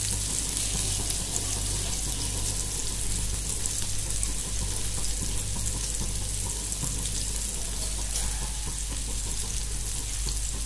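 Marinated king fish (seer fish) steaks shallow-frying in oil on a flat iron tawa: a steady sizzle with fine crackling.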